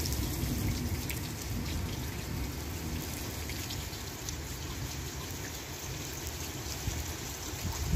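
Steady monsoon rain falling, with scattered drops tapping.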